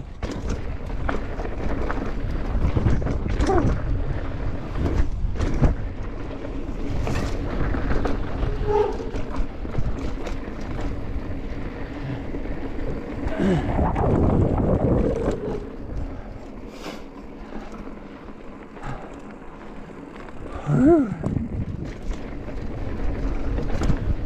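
Wind buffeting the microphone and a mountain bike rattling and knocking over a rough trail at speed; it eases off for a few seconds past the middle, then picks up again.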